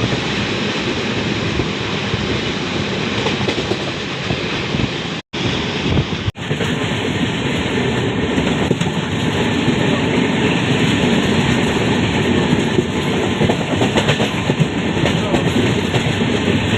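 Passenger train running along the track: a steady rumbling rail noise, broken by a brief dropout about five seconds in and a cut a second later.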